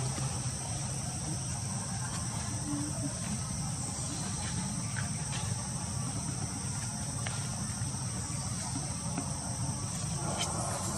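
Insects droning steadily at a high pitch, with a low rumble underneath and a few faint clicks.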